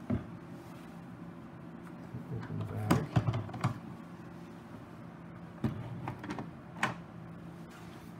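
Hard plastic clicks and knocks from a Pelican Vault V250 ammo case being handled as its latch is released and its lid is swung open, in two clusters about three and about six seconds in, over a low steady hum.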